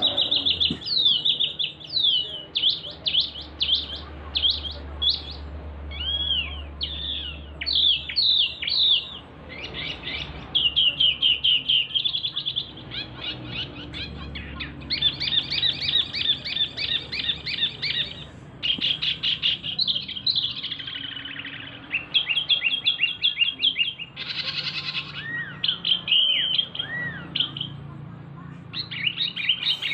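A male wambi, a small Indonesian songbird, sings loudly in its cage. It gives fast trills of rapidly repeated high notes in phrases of a second or two, with short pauses between them and a few lower slurred whistles.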